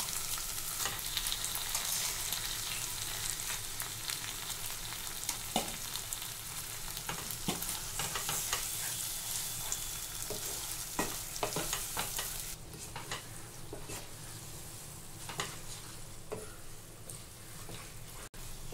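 Boiled taro-leaf and lentil mash sizzling in hot oil with fried onion and garlic in a nonstick kadai, stirred with a wooden spatula that scrapes and taps against the pan. The sizzle grows quieter about twelve seconds in.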